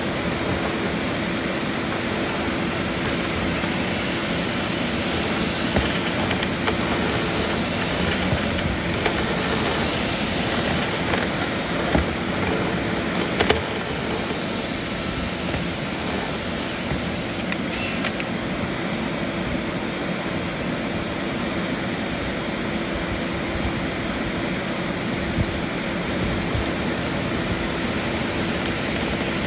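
Dryer-vent cleaning equipment running steadily: a loud, even rush of air over a low hum, with a few light knocks and clicks, most of them in the middle stretch.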